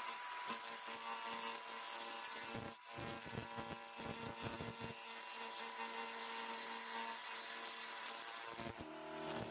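Laser cleaning machine burning rust and grime off a steel angle bracket: a steady hissing crackle over the machine's hum, with a run of sharper crackles about three to five seconds in.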